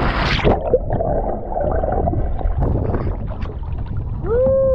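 A person splashing into the sea feet-first, then water churning and gurgling around a camera half under the surface. Near the end, a short vocal whoop that rises and then falls.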